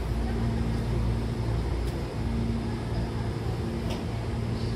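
Stopped Hankyu commuter train car humming with its door open: a steady low drone with a low tone that comes and goes, and two faint ticks about two seconds apart.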